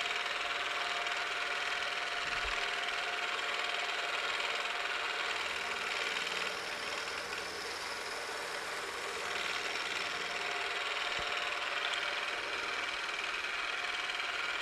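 Milling machine spindle running at about 1100 RPM while an end mill side-cuts a flat on a hex nut: a steady machine hum and hiss with a thin steady whine.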